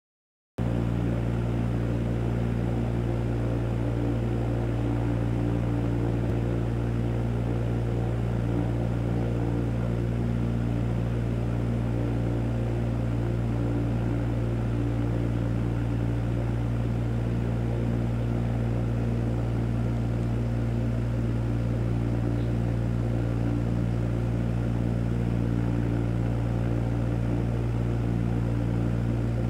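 Aquarium pump humming steadily: a strong low buzz with a stack of fainter, higher steady tones above it.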